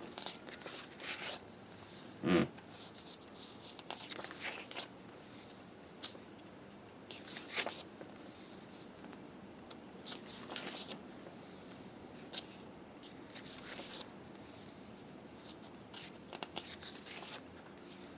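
Pages of a photobook being turned and handled: short paper rustles and swishes every second or two, with one louder thump about two seconds in.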